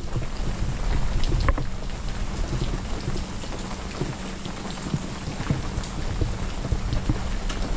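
Freezing rain falling steadily, with many scattered drips and small ticks.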